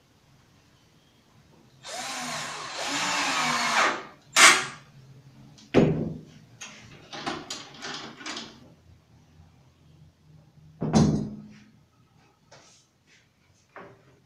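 Cordless drill/driver driving a screw into melamine board for about two seconds, then a brief second burst. Clicks and knocks follow as the drill is set down and the corner clamp is handled, with one heavier thump about eleven seconds in.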